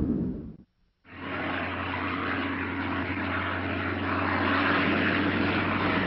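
Propeller-driven biplane's piston engine droning steadily. It starts about a second in, after a brief silence that follows another low engine-like sound stopping abruptly.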